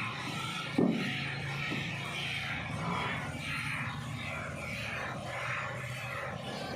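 Hand milking a buffalo: rhythmic squirts of milk hissing into a metal bucket, about two a second, over a low steady hum. A sharp knock about a second in.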